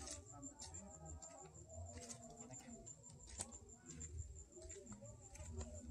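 Faint footsteps and light scattered clicks on a paved road as people walk a bicycle along, with a steady high insect trill and a low wind rumble on the microphone.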